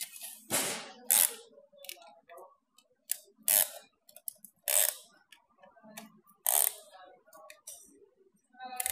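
Ratchet of a piston ring compressor clicking as its band is tightened around a piston with the key, in about five short bursts.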